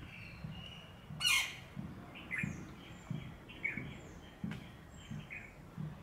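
Birds chirping and calling in short high notes, with one loud harsh burst about a second in. Underneath come irregular soft splashes as a flameback woodpecker bathes in a small plastic container of water.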